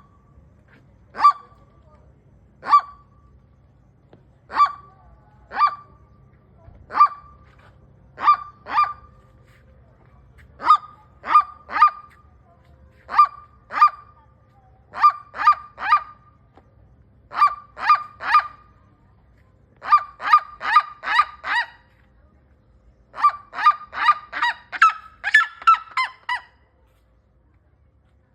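Red-legged seriema calling with loud yelping notes. They start singly, about a second or more apart, then come in pairs and threes, and build near the end into fast runs of five or six notes that climb slightly in pitch.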